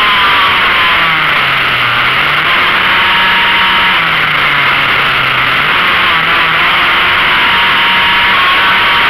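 Motorcycle engine heard from onboard while lapping a track, its revs falling and rising again several times through the corners, under a loud steady rush of wind noise on the microphone.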